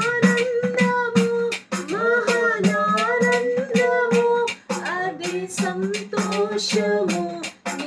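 A woman singing a Telugu Christian worship song in long held notes, with sharp handclaps keeping the beat about two to three times a second.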